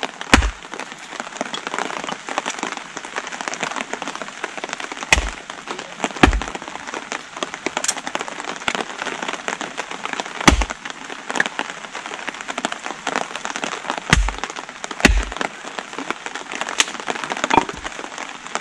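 Steady hiss of heavy rain, with about seven sharp, irregular wooden knocks as small wet sticks are chopped into finer pieces for a fire.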